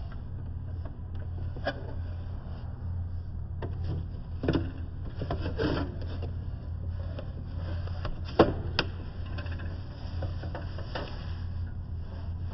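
A few scattered knocks, clicks and scrapes of goods and machine parts being handled while a vending machine is restocked, over a steady low hum.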